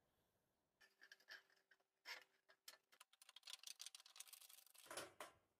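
Thin sheet steel flexed back and forth by hand along a fold, being worked until it breaks by metal fatigue: faint crinkling and rapid clicking, growing denser and loudest near the end.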